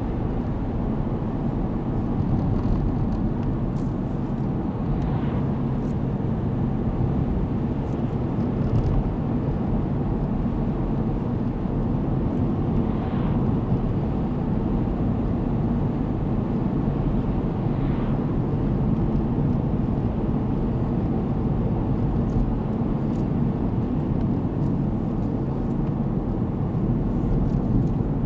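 Steady road and engine noise of a car driving at an even speed, heard from inside the cabin.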